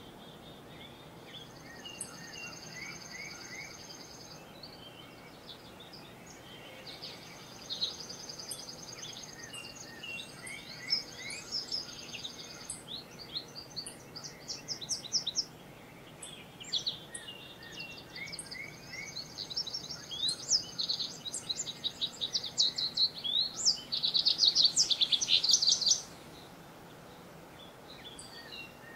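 Several woodland songbirds singing over one another: high buzzy trills, quick runs of notes and scattered chirps. The loudest burst of rapid song comes near the end and stops abruptly, all over a faint steady background hum.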